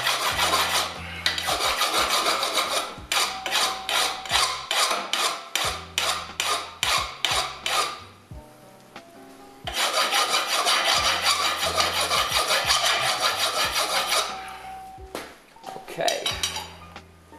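Steel rasp filing a hot forged steel knife blade clamped in a leg vise, working its less coarse side to straighten the blade. It starts as continuous scraping, turns into quicker separate strokes at about two to three a second, stops for a couple of seconds midway, then gives another long spell of scraping and a few last strokes near the end.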